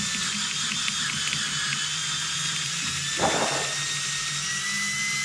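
Cordless drill running steadily with a 5 mm bit cutting through the first wall of a solar panel's aluminium frame, with a brief harsher grinding burst about three seconds in.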